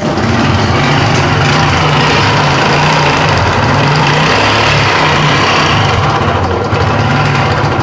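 Honda Pop 110i's single-cylinder four-stroke engine running loud and noisy just after catching, and sagging near the end. The mechanic traces the noise to a blown camshaft bearing and a cam chain at the end of its life.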